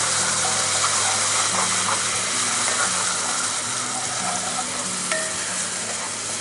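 Cold water poured into a hot flour-and-drippings roux in a cast iron skillet, sizzling steadily as a wooden spatula stirs it into gravy. The sizzle eases a little toward the end. A neighbour's lawn mower drones low underneath.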